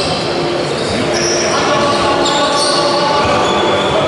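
A basketball bouncing on the court of a sports hall, with players' and spectators' voices echoing around it.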